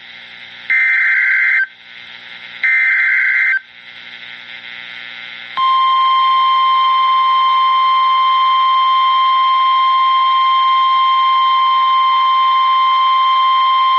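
Emergency Alert System SAME header data bursts over weather radio: two harsh, buzzy bursts of about a second each, the last of a three-burst header, with radio hiss between them. After a short gap a steady, high, single-pitched NOAA Weather Radio warning alarm tone starts about five and a half seconds in and holds. Together they mark the start of a new warning broadcast.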